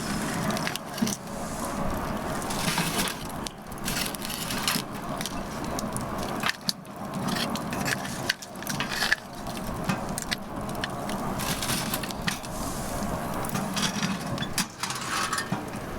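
Firewood burning, with frequent sharp crackles and pops over a steady hiss.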